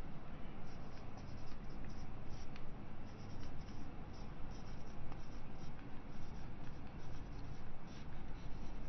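Marker pen writing on a whiteboard: many short, irregular squeaky strokes as handwriting is written out, over a steady low background hum.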